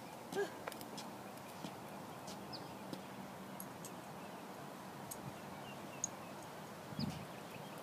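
Quiet outdoor background with faint, scattered high bird chirps and light clicks and knocks from a rollator walker being pushed slowly along a concrete sidewalk, with one soft knock about half a second in and another near the end.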